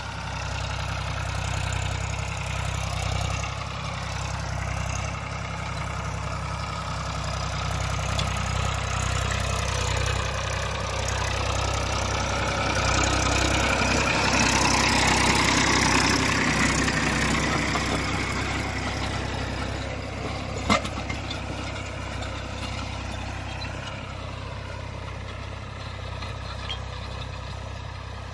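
Tractor diesel engine running steadily, growing louder toward the middle and then easing off, with one sharp clank about twenty seconds in.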